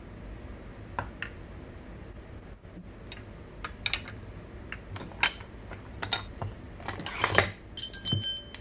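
Long flat steel bars of a crankshaft installer tool clinking and knocking against each other and the aluminium crankcase as they are handled. Scattered light clicks grow into louder clanks, and the loudest clank, near the end, rings on with a metallic tone.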